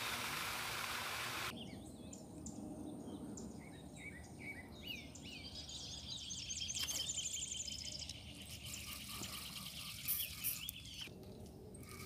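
Birds chirping and singing outdoors, with a rapid repeated chirping through the middle and a thin steady high whine above it. An even rough hiss fills the first second and a half and cuts off abruptly, and a few sharp clicks come about ten seconds in.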